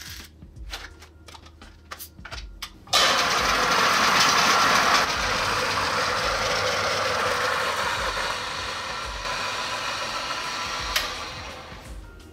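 Niche coffee grinder's motor and burrs grinding coffee beans, the grounds falling into a portafilter. The steady grinding starts suddenly about three seconds in and fades over the last few seconds. Before it come a few light handling clicks and rustles.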